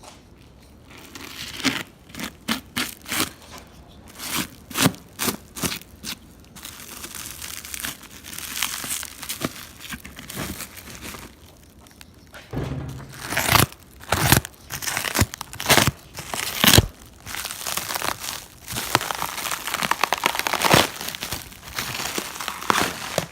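Packing material being crumpled, torn and rustled by hand while a box is unpacked, in two spells of sharp crinkles with a quieter stretch in the middle.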